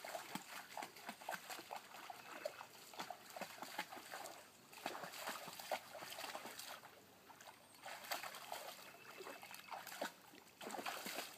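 German shorthaired pointer wading in shallow creek water, its legs splashing and sloshing in irregular splashes, with a few short lulls.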